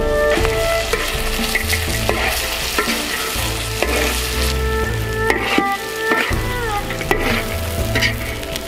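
Crab pieces, corn and vegetables sizzling in a hot wok while a metal ladle stirs them, with scattered scrapes and knocks of the ladle against the wok.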